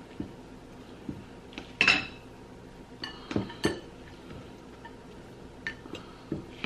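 Chopsticks and metal spoons clinking against white ceramic bowls as noodles are tossed and mixed: a scattering of light, irregular clinks, the loudest about two seconds in.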